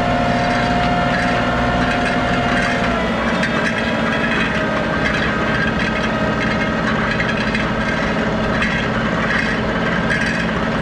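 John Deere compact tractor's diesel engine running steadily under way, with a high whine that drops away about three seconds in.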